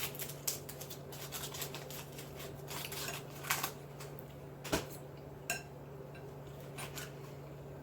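Scattered small clicks and rustles of a wrapper and food being handled, the sharpest a few seconds in, over a steady low hum.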